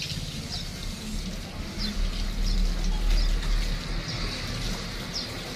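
A small bird chirping repeatedly, short high falling notes about once a second, over a low rumble that swells in the middle.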